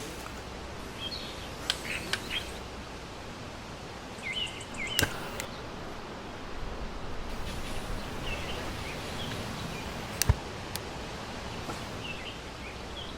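Outdoor ambience: a steady hiss with scattered short bird chirps and a few sharp clicks or knocks, the loudest about five and ten seconds in.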